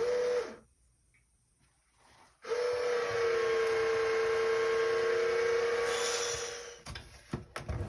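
Clack water softener control valve whistling and hissing as it releases the system's pressure through the drain after regeneration is started in bypass: one steady whistle over rushing hiss for about four and a half seconds, fading out, with a few clicks near the end.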